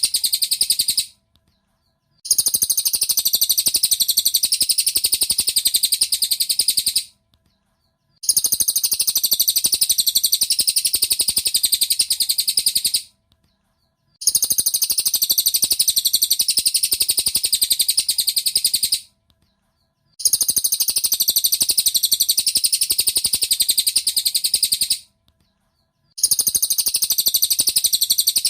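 Cililin bird song played as a masteran recording: rapid, high twittering chirps in stretches of about five seconds, each broken by about a second of silence, repeating over and over.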